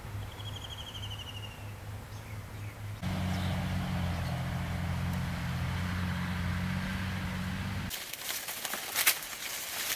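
Steady low hum with a short, slightly falling trilled bird call early on. After a cut the hum comes louder. From about 8 s in there is crackling rustle of dry maize leaves and stalks being handled, with a sharp snap about a second later that is the loudest sound.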